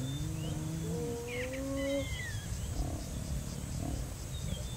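Spotted hyenas calling: long calls that rise in pitch during the first two seconds, one starting as another ends, then softer calls.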